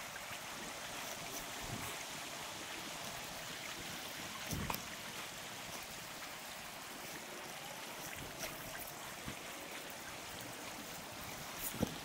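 Creek water running over shallow riffles, a steady rushing hiss, with a soft knock about four and a half seconds in and another near the end.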